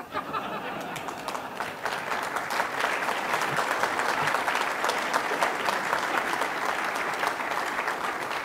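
Audience applauding, building up over the first couple of seconds into steady applause.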